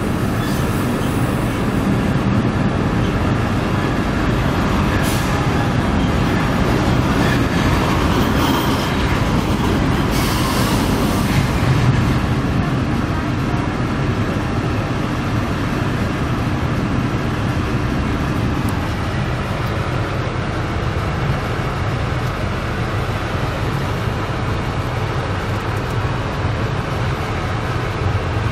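Diesel multiple unit heard from inside the passenger carriage while moving: a steady rumble of wheels on rails and running gear. It swells into a louder rush about five seconds in and again around ten to twelve seconds in, and the low rumble eases a little near the end.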